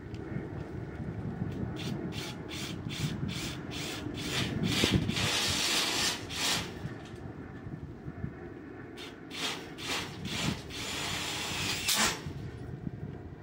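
Hand-tool work on a steel greenhouse pipe frame: two runs of quick rasping strokes, about four a second, each followed by a longer steady scraping stretch. One sharp knock comes near the end.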